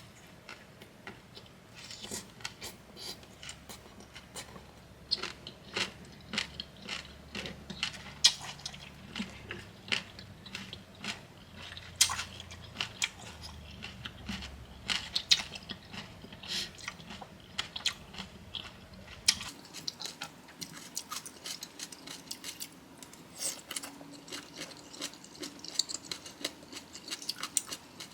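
Close-miked chewing and biting of crunchy bamboo shoot papaya salad with crab: irregular crunches and wet crackles, several a second.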